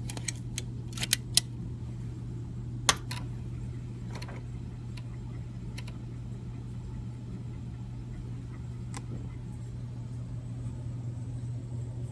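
Exposed 5¼-inch floppy drive of a Kaypro being loaded and booted. A quick run of sharp clicks comes in the first three seconds as the disk goes in and the drive door lever is closed. Then a steady low hum of the running drive and computer, with an occasional faint click as the disk is read and CP/M boots successfully.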